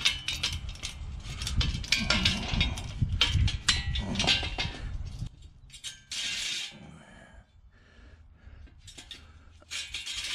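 Metal clinking and rattling as locking pliers are clamped onto a bent steel flat bar of a mower utility-bed frame and worked to twist it straight. The rattling lasts about five seconds, then quiets to a few faint knocks and two short scraping rushes.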